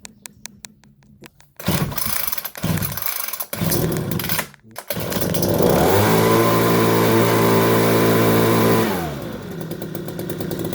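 Gas leaf blower engine starting: it fires in three short bursts, then catches and revs up to full throttle, holds for about three seconds and drops back to a steady idle.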